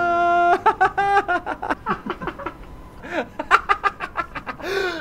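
A man laughing loudly and theatrically: a long held 'haaa', then a fast run of short 'ha-ha-ha' bursts, a second run a little later, and a rising-then-falling whoop near the end.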